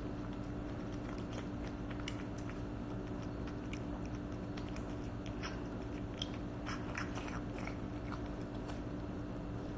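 A cat eating raw chicken from a stainless steel bowl, with irregular wet chewing and smacking clicks that are busiest in the second half. A steady low hum runs underneath.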